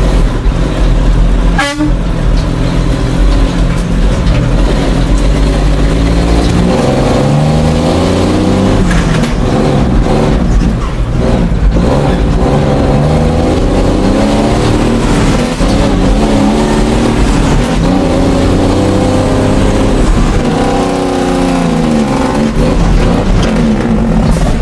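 Truck engine heard from inside the cab, pulling through the gears: its note climbs as it revs, then drops at each gear change, several times over.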